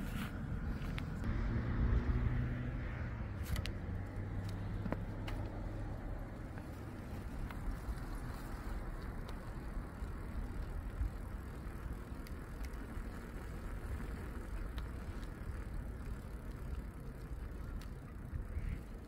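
Steady rumbling wind and ride noise while travelling along a rough asphalt path. There is a low hum between about one and five seconds in, and a few faint clicks.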